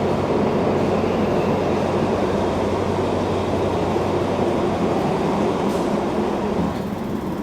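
Steady rumble and low hum of a diesel passenger train, easing slightly near the end.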